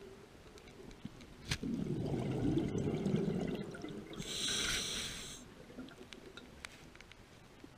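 Scuba diver breathing through a regulator underwater. A click comes first, then a low burble of exhaled bubbles for about two seconds, then a short hiss as the diver draws a breath through the demand valve.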